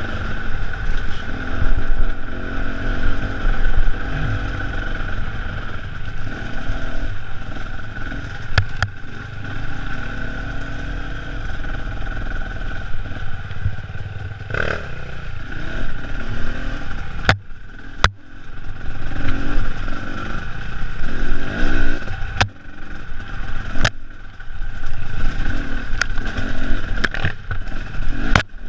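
Enduro motorcycle engine running under constantly changing throttle, heard close up from on the bike as it rides a bumpy dirt trail, with sharp knocks and clatter from the bike jolting over the ground.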